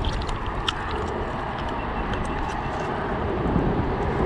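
A steady low rumble of outdoor noise, with a few faint clicks about two-thirds of a second in.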